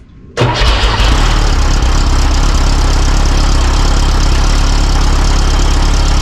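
Porsche 914's air-cooled engine running steadily at a fast idle, cut in sharply about half a second in. The idle is a little high because the engine is still cold.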